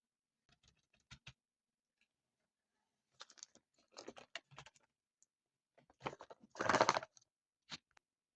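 Hands handling squishy toys and their packaging: scattered light taps and clicks, then a louder rustle about six and a half seconds in.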